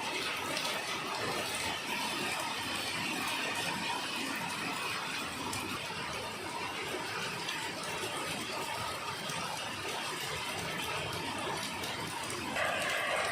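Rain falling steadily, an even hiss with faint scattered drop ticks, growing louder shortly before the end.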